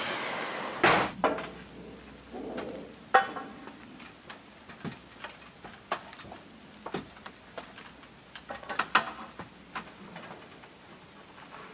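Scattered sharp clicks and knocks from hands-on work, the loudest about a second in, with others around three seconds and a cluster near nine seconds.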